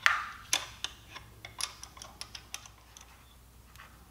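Sharp, irregular clicking of a small 10 mm wrench working the bolt on an e-bike's front fender and headlight bracket as it is tightened, a dozen or so clicks that thin out near the end.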